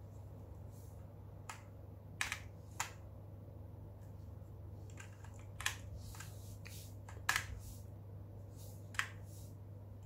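Keys of an HP GK100 mechanical keyboard with Outemu switches being pressed one at a time: a dozen or so short, sharp clacks at uneven intervals, some in quick pairs, the loudest about seven seconds in.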